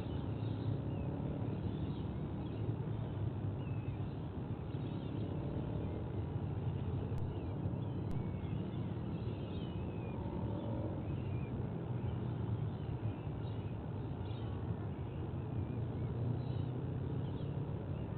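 Steady low rumble of outdoor background noise, with faint, high bird chirps scattered throughout.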